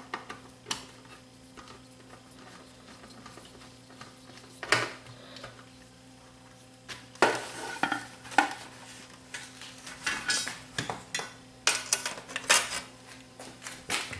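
Irregular metallic clinks, clicks and knocks of a screwdriver, screws and the sheet-metal chassis and cabinet of a cassette deck being handled during reassembly, with one louder knock about five seconds in and a busier run of clatter in the second half.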